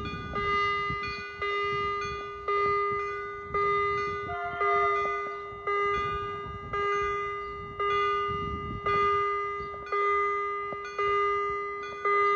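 Railway level-crossing warning bell ringing steadily at about one stroke a second, each stroke ringing out before the next, sounding because the crossing is active for an approaching train.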